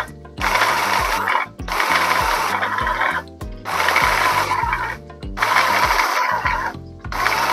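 Electric food chopper run in about five short pulses of a second or so each, its blade coarsely chopping a full bowl of fresh red chilies.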